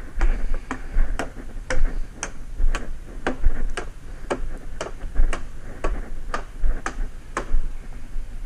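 Steady chopping: a sharp knock about twice a second as branch stubs are cut off a wooden pole to leave it smooth.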